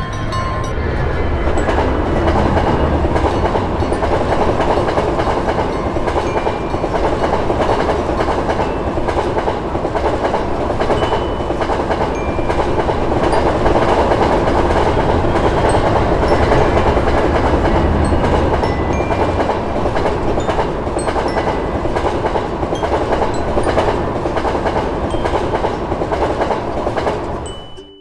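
Passenger train passing a level crossing: a steady, loud rumble and rattle of wheels on the rails that fades out sharply just before the end.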